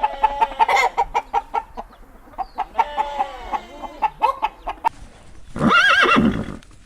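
A run of sharp clicks and short pitched animal calls, then a horse whinnies once, loudly, with a wavering pitch, about five and a half seconds in.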